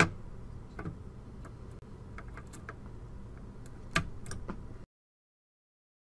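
Light clicks and ticks of a desktop processor being set into its motherboard socket and the socket's metal retention bracket being handled, with a sharp click at the start and another about four seconds in.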